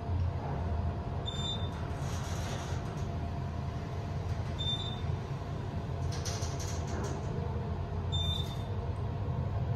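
Otis Gen2 machine-room-less traction elevator travelling down, heard from inside the cab: a steady low rumble with a faint steady hum. Three short, high floor-passing beeps sound about three seconds apart as it passes floors.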